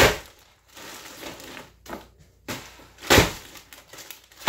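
A dumbbell pounding ice cubes in a plastic zip-top bag on a countertop, crushing the cubes into smaller pieces: about four heavy thuds with crunching ice, the loudest about three seconds in.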